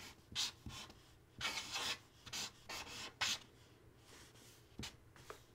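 Felt-tip marker squeaking and rubbing across paper in short strokes as the letters W-I-S-K are written, several strokes in the first few seconds, then fainter.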